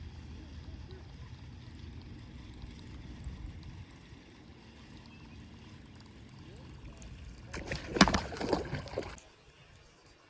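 Largemouth bass blowing up on a topwater lure: a sudden loud commotion about eight seconds in, lasting over a second, over a steady low background hiss.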